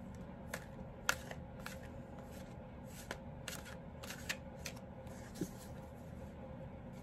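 Oracle or tarot cards being shuffled by hand: an irregular run of sharp card clicks and flicks over a faint steady hum.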